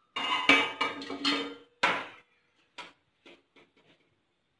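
Stainless steel pot and utensils clattering as they are handled on the stovetop: a run of metallic scraping and clanking with ringing, one sharp clank about two seconds in, then a few light taps.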